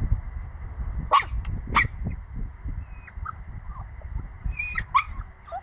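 Puppy barking in short, high yaps: two about a second apart early on the way in, then a quick cluster near five seconds.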